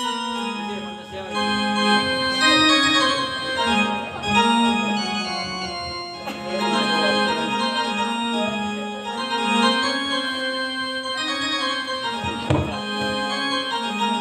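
Harmonium playing a sustained kirtan melody, with khol drum strokes beneath it and one sharp knock near the end.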